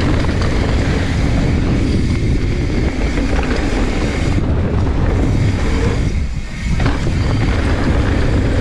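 Mountain bike descending a dirt trail: tyres rumbling over the ground and wind rushing over the microphone in a steady, loud rush that dips briefly about six seconds in.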